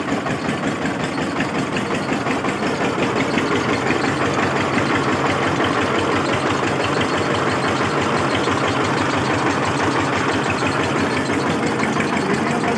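Tractor's diesel engine running steadily, driving a mobile screw-type oil expeller that is pressing mustard seed.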